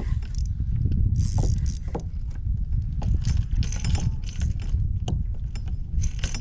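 Wind rumbling on the microphone, with scattered clicks and short rattling bursts from a spinning reel and rod being handled while a hooked striped bass is played and reeled in.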